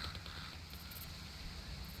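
Quiet outdoor nature ambience: a steady low rumble with a few faint, very high short chirps.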